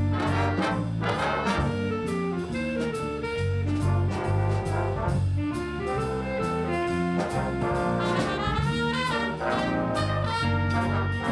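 Student jazz band playing a Christmas tune: trumpets, trombones and saxophones over a bass line, with steady drum strokes keeping the beat.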